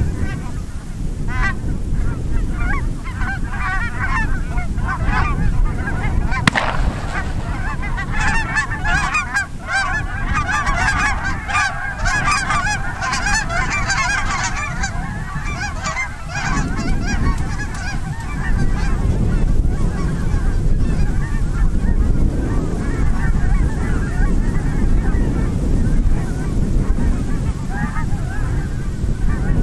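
A large flock of wild geese calling in flight: a dense chorus of overlapping honks that swells loudest near the middle and then thins out.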